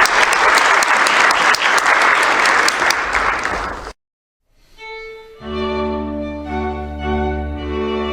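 Audience applauding. The applause cuts off abruptly about four seconds in, and after a short silence string music with violin and cello starts, holding long sustained notes.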